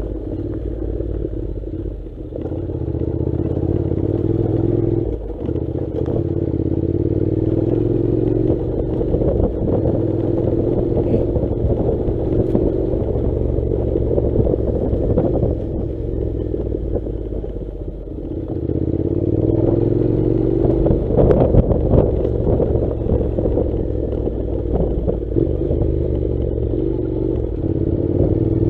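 Honda NC700's parallel-twin engine running while riding a rough dirt track, easing off twice and picking up again, its pitch rising after the second dip. Short knocks and clatter sound over the engine.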